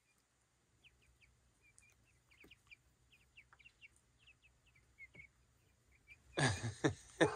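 Young chickens peeping softly in a run of short, high, falling peeps, then a loud, harsh squawking from a chicken near the end.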